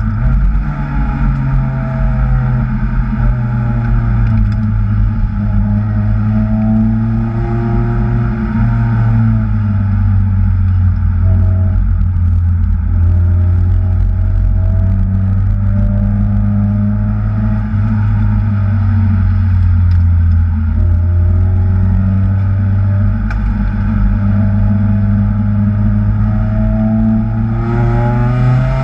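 Kraftwerks-supercharged Acura TSX engine running hard, its revs repeatedly climbing and dropping as the car accelerates and slows.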